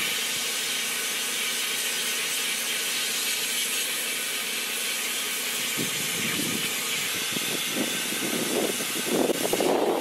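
Compressed air hissing steadily out of the nozzle of a Cyclone E100 LTC benchtop blast cabinet's bead-blasting gun, with little media coming out: the gun is not pulling media up its pickup tube. An uneven, rougher sound joins the hiss over the last few seconds.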